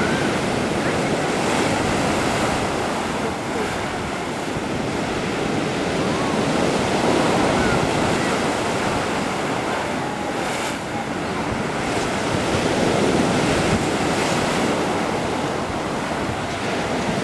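Black Sea surf washing steadily onto the shore, swelling and easing slowly, with wind buffeting the microphone.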